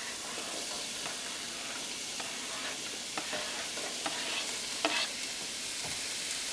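Chopped onion and green bell pepper sizzling steadily as they hit a hot sauté pan, with a few short clicks and scrapes as more pieces are pushed into the pan from a cutting board.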